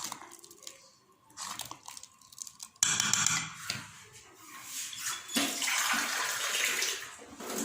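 Liquid pouring in two spells, starting suddenly about three seconds in and again about five and a half seconds in.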